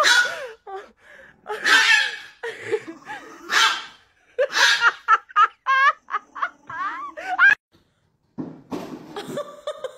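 A person laughing hard in loud, breathy, gasping bursts that rise into high wavering squeals about five seconds in.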